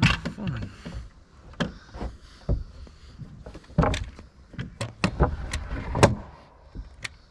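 Irregular sharp knocks on wooden framing lumber, about eight of them, the loudest about six seconds in.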